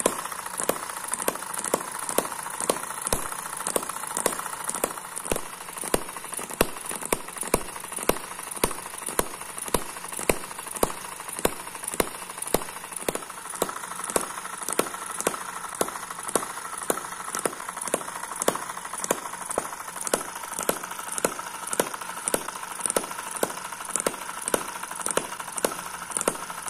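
Miniature M19 vertical four-stroke hit-and-miss engine running slowly with a flying ball governor. It gives an even, sharp clicking, roughly two clicks a second, over a steady light mechanical whir.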